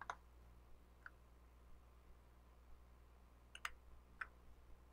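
Near silence over a faint steady hum, with a few computer mouse button clicks: one at the start, a faint one about a second in, and two about half a second apart near the end.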